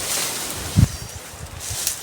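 Rustling in dry leaves and brush, with one dull thump a little under a second in.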